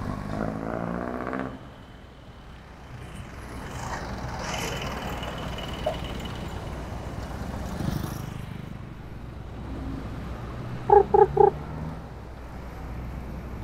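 Street traffic around a moving bicycle: a steady low road rumble, with a passing vehicle's engine near the start. About eleven seconds in, a vehicle horn beeps three times in quick succession.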